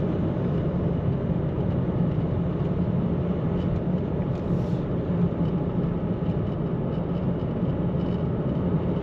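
Steady road and engine noise from inside a moving car, a constant low rumble that cuts off abruptly.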